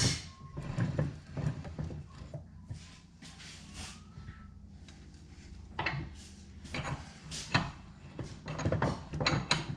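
Bench vise being reassembled and worked by hand: scattered metal knocks and clicks of its parts, with a quieter stretch in the middle.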